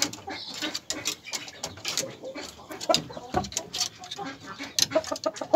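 Birkok chickens clucking in a wooden coop, over a run of short scuffs, knocks and feather rustles as a rooster is handled.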